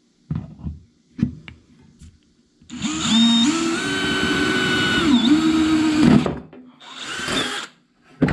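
Power drill boring a hole through thin sheet metal. First a few knocks as the sheet is handled on the bench. Then the drill runs for about three and a half seconds, rising in pitch as it spins up and dipping briefly as the bit bites, followed by a shorter second run and a sharp knock near the end.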